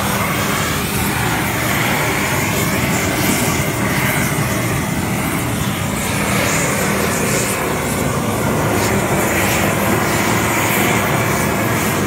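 LPG gas torch burning with a loud, steady rush of flame as it is played over a pig carcass to singe off the hair.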